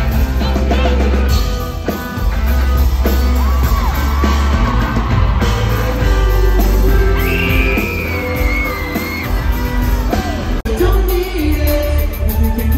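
Live rock band playing loud through a hall's PA, with sung lead vocals over heavy bass and drums, heard from within the crowd as audience members yell and sing along. About two-thirds of the way through the sound drops out for an instant and comes back changed, as at an edit in the recording.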